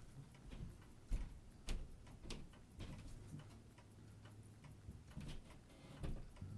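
Light, irregular clicks and taps of watchmaker's tools on a watch movement during reassembly, a few each second.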